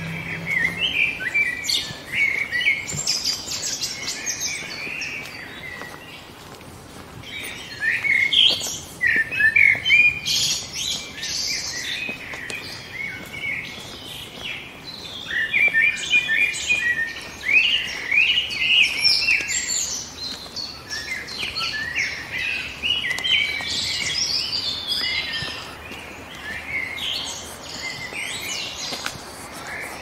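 Many small songbirds singing and chirping at once: a dense woodland chorus of overlapping high calls that swells and eases in waves.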